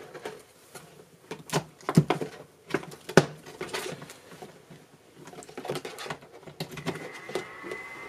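Light clicks and knocks from the heater's power cord being handled and plugged in. About seven seconds in, the Alrocket mini electric fan heater starts running with a steady high whine.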